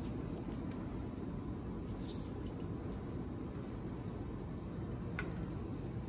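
A few sharp clicks from an Amazon parrot's beak working a piece of dried fruit, the clearest about five seconds in, over a steady low background rumble.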